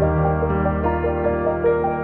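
Background music: slow, ambient new-age style track with sustained notes over a held low bass.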